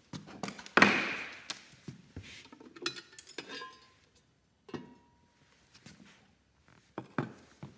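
Clunks and clinks of the side cover being taken off a Lagler Hummel belt floor sander, with its motor off. The loudest knock comes about a second in, followed by scattered lighter clicks and knocks.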